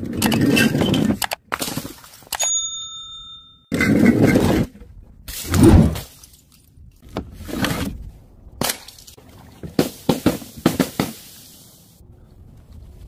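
A run of crashes as dropped objects smash onto hard ground, scattering fragments, with a short ringing ding about two and a half seconds in. Smaller knocks and crunches follow, fading in the last couple of seconds.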